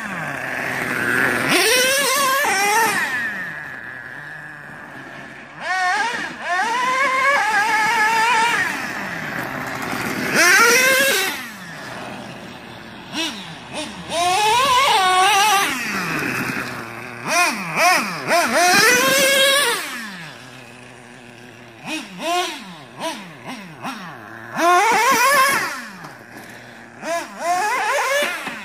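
Traxxas Revo 3.3 nitro RC monster truck's small two-stroke glow-fuel engine revving in about eight bursts, the pitch climbing and falling with each squeeze of the throttle and dropping back to a lower, quieter running note between them.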